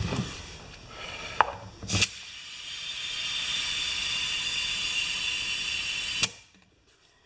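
A couple of sharp metal clicks as the air chuck is fitted to a wheelbarrow tire's valve stem, then compressed air hissing steadily into the tire for about four seconds, cutting off suddenly with a click when the chuck is released.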